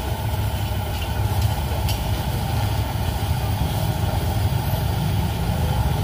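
Fish crackers deep-frying in a wok of hot oil, sizzling steadily as they are stirred with a wire skimmer, over a steady low engine-like rumble.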